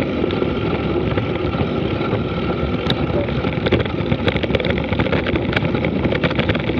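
Wind rushing over the microphone and the rattle of a mountain bike rolling fast downhill over a rough dirt road, with a run of sharp clicks and clatter from the bike and loose stones starting about halfway through.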